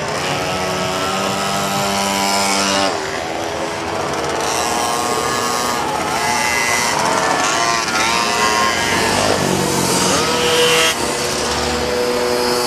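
Pocket bike (mini-moto) engines revving high as the little bikes pass one after another through a corner. The pitch climbs, drops away sharply about three seconds in, and rises and falls again as more bikes go by.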